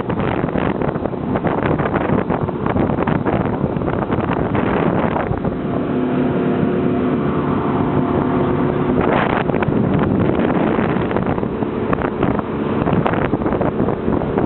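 Motorboat engine running under way, with wind buffeting the microphone. For a few seconds in the middle the engine's steady hum stands out more clearly.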